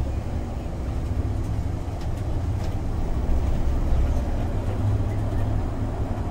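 Cabin noise of a MAN Lion's City articulated city bus with a biogas engine, driving at speed: a steady low rumble of engine and road, with a couple of faint clicks.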